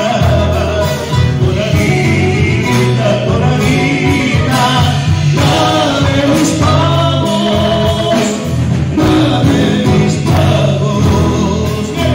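Live Argentine folk band playing a tonada: men singing over strummed acoustic guitars, electric bass and drums.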